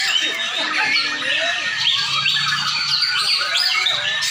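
Several white-rumped shamas (murai batu) singing at once: a dense, unbroken tangle of overlapping quick whistles, chirps and harsh squawking calls.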